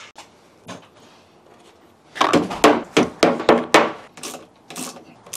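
A run of about eight sharp knocks over roughly three seconds, each with a short ring.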